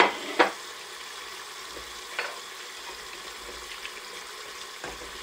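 A stainless steel pot of vegetable broth simmering with a steady low hiss while vegetables are set into it by hand. Two sharp knocks come right at the start, another about two seconds in, and lighter clinks near the end.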